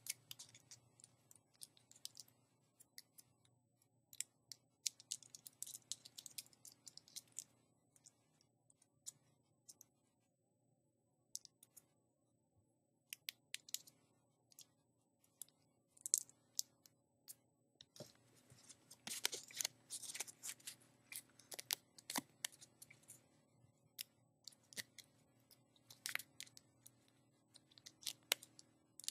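Small sheet of paper being folded and creased by hand into a tiny origami boat: faint, irregular crinkles and crackles, busiest about two-thirds of the way through.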